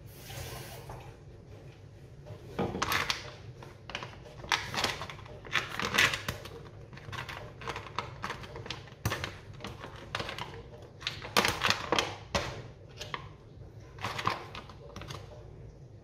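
A paper food packet being handled and torn open: irregular crinkling and rustling, with sharp crackles. It follows a brief rush of water near the start.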